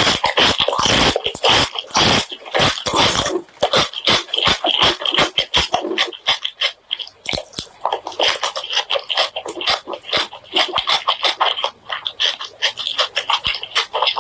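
Close-miked mouth sounds of a person eating spicy pork leg curry with rice: a fast, uneven run of wet smacks and clicks from chewing and lip-smacking.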